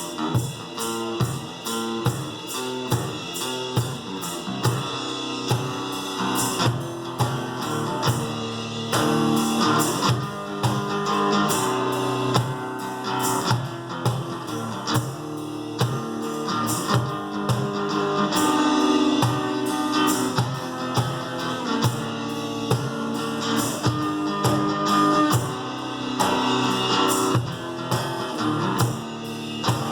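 Live acoustic guitar playing with drums keeping a steady beat.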